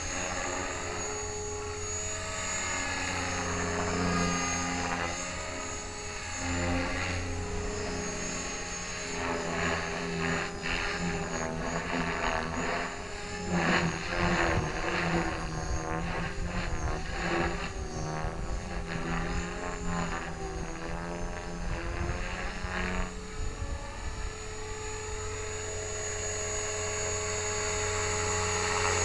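Align T-Rex 500 ESP electric RC helicopter in flight: the brushless motor and gear whine and rotor-blade whoosh keep wavering up and down in pitch as the blades load and unload through its maneuvers. The sound is choppiest in the middle and grows louder near the end as the helicopter comes in low.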